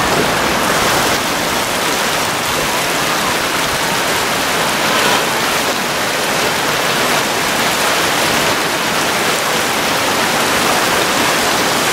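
Rushing creek water, a steady, even hiss.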